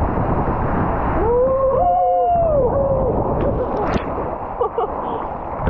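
Rushing water and wind buffeting the microphone on a ride down a waterslide. A person lets out a long rising-and-falling yell for about two seconds, starting just over a second in, and a few sharp knocks and splashes follow.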